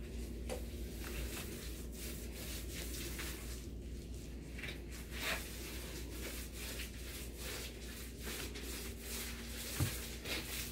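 Paint roller being worked against a wall, soft irregular rubbing strokes over a steady low hum, with a single knock near the end.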